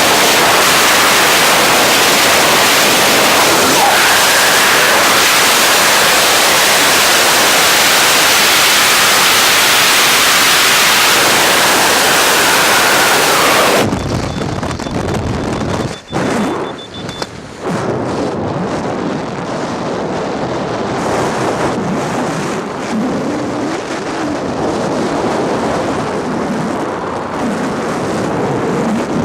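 Freefall wind rush on a skydiver's helmet-mounted camera microphone, a loud steady roar that cuts off suddenly about halfway through as the parachute opens. After that comes quieter, gusting wind noise under the canopy.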